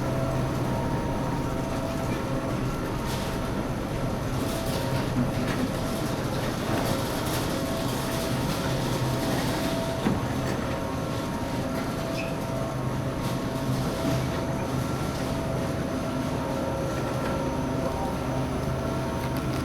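Shopping cart rolling and rattling steadily over a hard store floor, with scattered small clicks and a steady background hum.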